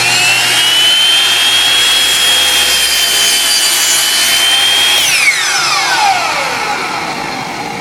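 Electric miter saw motor winding up to speed with a high, steady whine during a 25-degree angle cut through wood. About five seconds in it is switched off, and the whine falls in pitch as the blade spins down.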